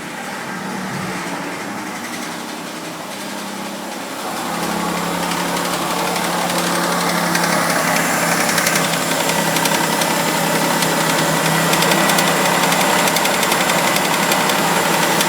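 Third-generation Mitsubishi Eclipse engine idling with a rapid ticking clank, getting louder about four and a half seconds in. The owner suspects a lifter tick or the hydraulic tensioner.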